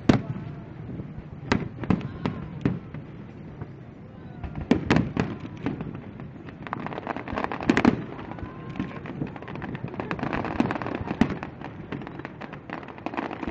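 Fireworks display going off: sharp bangs and pops at irregular intervals, several close together about five and eight seconds in, and a denser spell of crackling near the end.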